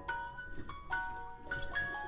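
Background music: a light melody of bell-like chiming notes, a new note every few tenths of a second.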